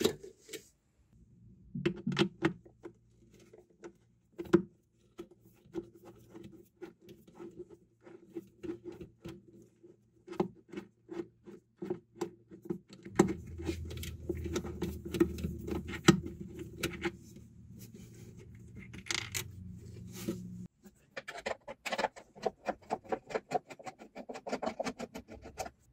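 Small metallic clicks, taps and scrapes of a nut driver on nuts and screws as the horn driver and crossover parts are loosened inside a wooden speaker cabinet. A steady low hum comes in about halfway and cuts off suddenly a few seconds later. Near the end there is a quick run of clicks.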